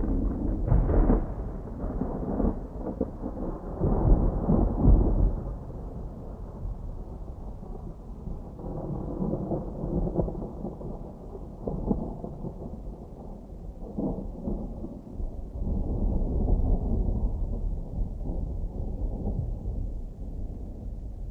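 Distant thunder rumbling continuously in slow rolling swells, loudest about four to five seconds in and swelling again later.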